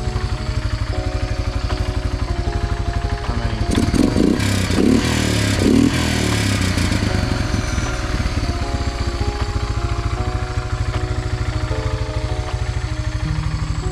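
Honda FourTrax 300 ATV's single-cylinder four-stroke engine idling steadily. Between about four and six seconds in, the throttle is blipped three times and the revs rise and fall before it settles back to idle.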